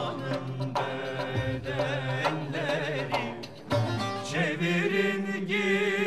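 Turkish folk music in a Middle Eastern style: a plucked or struck instrumental melody over regular percussion strikes, with a wavering melodic line, sung or played, coming in about four seconds in.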